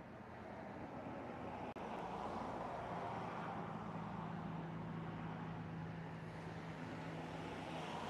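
Distant road vehicle running: a rushing noise that swells about a second in, with a steady low engine hum beneath it.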